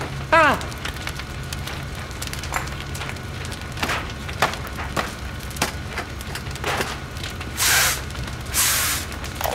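Fire crackling on a burning machine, with sharp snaps and pops scattered throughout over a steady low hum. A short sound slides down in pitch just after the start, and two brief hissing rushes come near the end.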